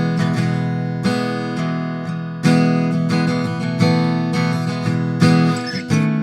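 Taylor GS Mini acoustic guitar strumming chords, each new strum striking about every second or so and ringing into the next.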